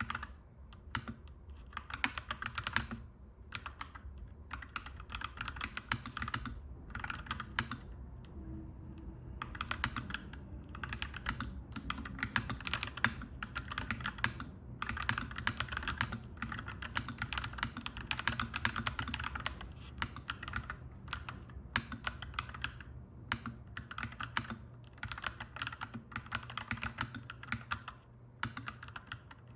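Clacky mechanical keyboard typing in bursts of rapid keystrokes with short pauses between them, over a steady low background hum.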